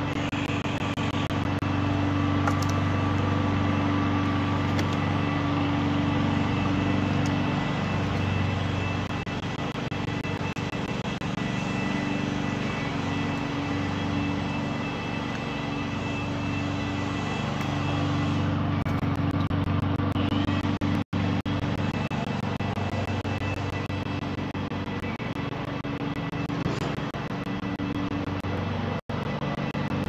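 Steady road traffic noise, a continuous low rumble. The sound drops out for an instant twice in the second half.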